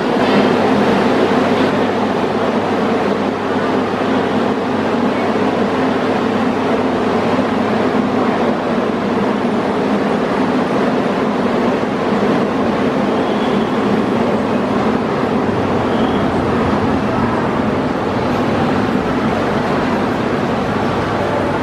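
Penang Hill funicular in operation: a Doppelmayr Garaventa car and its haul rope running on the incline track as the car pulls out up the hill. It makes a steady, loud mechanical rumble with a constant hum that doesn't change much.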